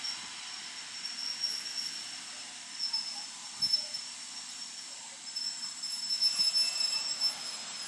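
Passenger train coaches rolling away and braking into a station, with thin high-pitched squealing from the wheels and brakes that wavers and breaks off, over a faint low rumble.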